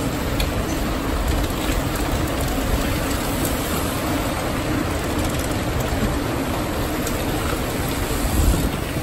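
Many mountain bikes riding over cobblestones: a steady rumbling rattle of tyres and bike frames on the cobbles, with a few faint small clicks.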